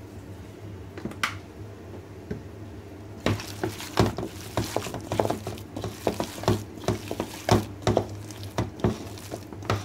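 Wet squishing and scraping of marinated chicken pieces in a gram-flour batter being mixed by hand in a steel bowl. It starts about three seconds in and goes on in quick, irregular strokes against the bowl, over a steady low hum.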